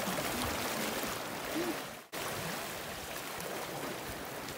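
Steady rushing wash of sea water on the shore. It cuts out for an instant about two seconds in.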